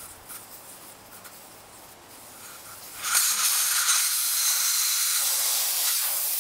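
Air hissing out of a fully pressurized tire through its valve stem as the valve core is unscrewed with a core removal tool: after a few faint clicks, a sudden loud, steady rush of air starts about three seconds in and keeps going.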